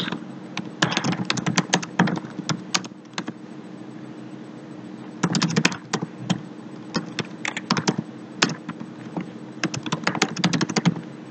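Computer keyboard typing in quick runs of keystrokes, with a pause of about two seconds partway through, over a faint steady hum.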